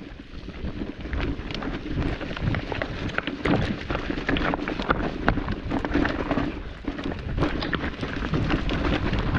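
Electric mountain bike riding down a rocky, overgrown trail: tyres crunching over rocks and brush, with many rattles and knocks from the bike over a low rumble that builds about a second in.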